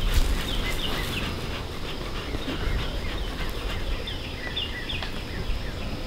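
Birds chirping in many short, quick calls over a low rumble of wind on the microphone.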